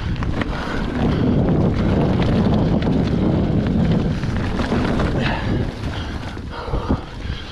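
Mountain bike riding down a leaf-covered dirt trail: tyres rolling and crunching over dry leaves, with a low wind rumble on the microphone. A few sharp clicks and rattles from the bike come over bumps, one about five seconds in and another near the end.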